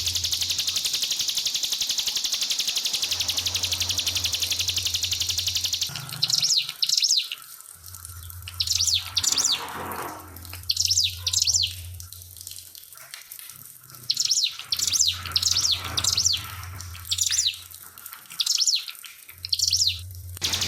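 Steady rush of trickling water for about the first six seconds, then a ciblek pinus (a prinia) singing a series of short, high, fast chattering phrases with brief pauses between them. A low hum comes and goes underneath.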